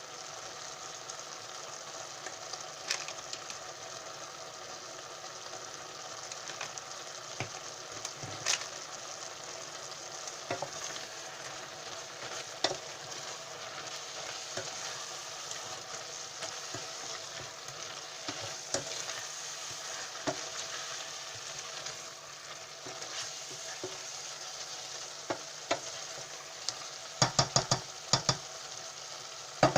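Beef and onions sizzling in olive oil in a pan while being stirred, with scattered knocks of the spoon against the pan and a quick run of clicks near the end.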